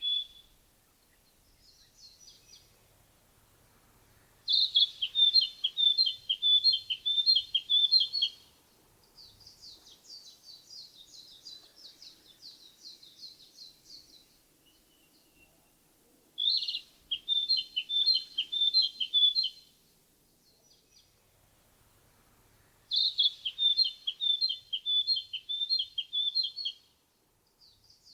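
Narcissus flycatcher singing: three loud phrases of quickly repeated whistled notes, each lasting three to four seconds. A softer, higher run of notes falls between the first two phrases.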